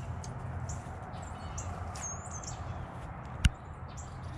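Outdoor ambience: short, high bird chirps and calls over a steady low hum, with one sharp click about three and a half seconds in.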